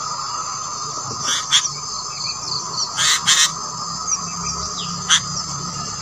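Sooty-headed bulbul nestlings giving short, harsh begging calls: a few scattered cries, the loudest pair about three seconds in and one more near the end. A steady insect drone runs underneath.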